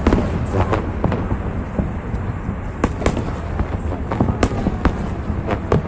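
Fireworks going off: many sharp bangs at irregular intervals over a continuous low rumble.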